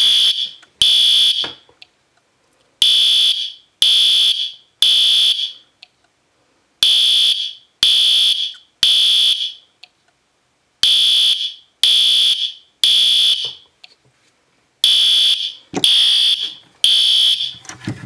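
System Sensor P2R (SpectrAlert Advance) horn strobe sounding in the temporal pattern: groups of three harsh, loud horn blasts about a second apart, with a pause of about a second and a half between groups. This is the standard fire-evacuation signal.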